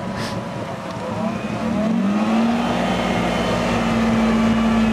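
Off-road G-Class 4x4's engine running, revving up about two seconds in and then held at steady higher revs as the vehicle pulls away over sand.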